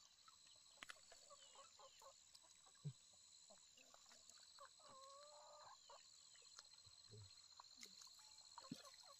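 Near silence: faint outdoor ambience with a steady high whine, scattered small clicks, and a short animal call about five seconds in.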